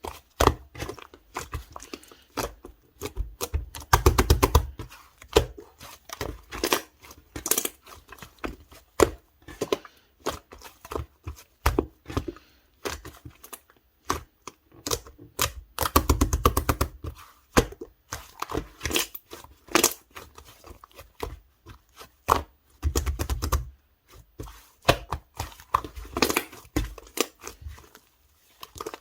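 Pink clay-mixed slime being squished, poked and stretched by hand, giving a stream of sticky clicks, pops and crackles. Three times it breaks into a dense run of rapid clicks with a soft thud.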